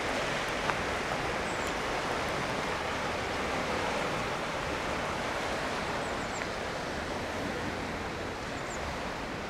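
Steady rushing of the River Stour in flood: fast, high water flowing past the bank as an even, continuous noise that eases slightly near the end.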